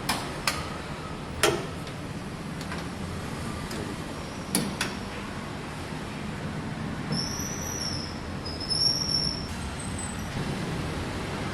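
Steady low background rumble, with a few sharp clicks and knocks in the first five seconds and two short high chirps about halfway through.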